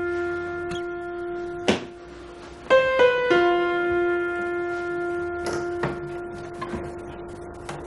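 Slow background piano music: a few single held notes ring out and fade, with a short sharp click about two seconds in.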